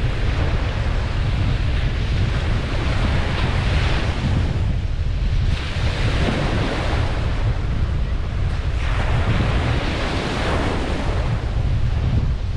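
Ocean waves breaking and washing up a beach, swelling and fading about three times, over a steady low rumble of wind on the microphone.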